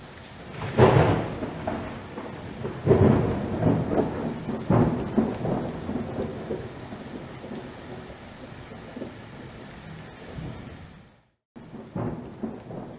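Thunderstorm sound effect: three loud thunderclaps in the first five seconds, each rolling off, over a steady hiss of heavy rain. The sound cuts out briefly, then another clap comes near the end.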